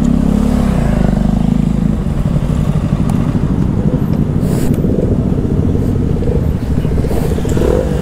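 Motorcycle engines idling steadily, the rider's own single-cylinder KTM RC sport bike among several others; near the end another engine's note rises as a bike pulls up.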